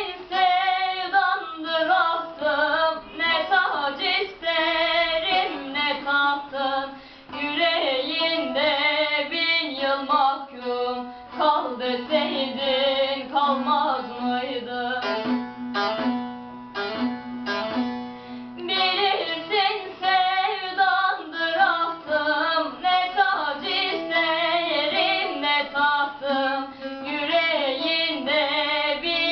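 A young female voice singing a slow Turkish song with vibrato over a plucked string accompaniment, holding one long note about halfway through.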